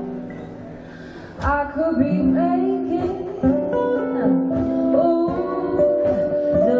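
Two acoustic guitars playing live together, quieter at first, then a sharp strum about a second and a half in, with a woman singing over them.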